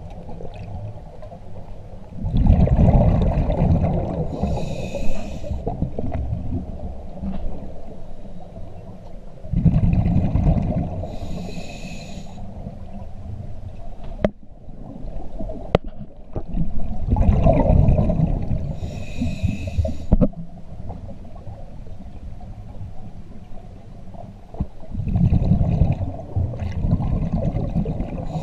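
Scuba diver breathing through a regulator underwater: each exhaled breath comes out as a rumbling gush of bubbles, followed by a shorter hiss from the regulator, four breaths about seven to eight seconds apart.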